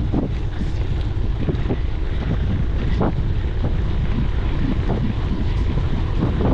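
Wind buffeting an action camera's microphone on a moving gravel bike, a steady low rumble with scattered short knocks and rattles.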